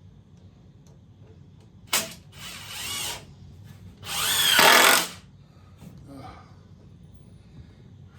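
Power drill driving screws in two short runs, a brief one about two seconds in and a louder, longer one about a second later, the motor pitch rising and falling as it spins up and slows.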